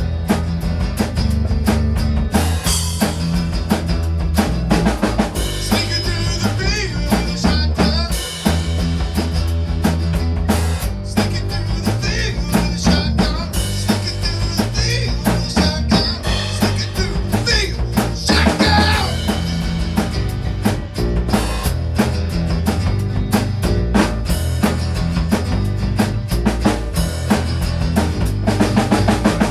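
A drum kit played along with a rock song, a steady beat of bass drum and snare over the band's backing.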